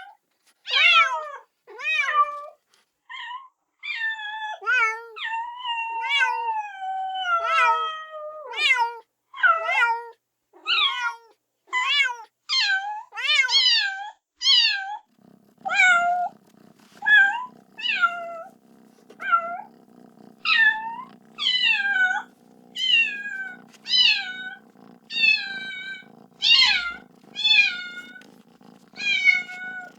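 Kitten meowing over and over, loud high-pitched cries about once a second, some drawn out and falling, as it calls for its mother. About halfway through a low steady hum starts underneath the meows.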